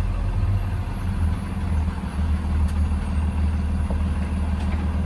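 Engine of a Blue Bird Vision school bus running steadily, a low drone heard from inside the bus.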